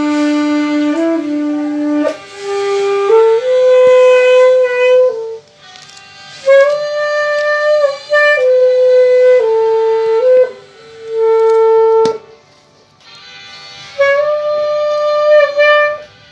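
Saxophone playing a simple melody in long held notes, one note at a time, in four short phrases with brief pauses between them.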